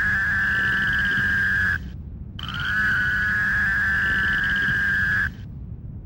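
Fowler's toad calling: two long, steady buzzing calls, the first about two seconds and the second about three, with a short gap between them.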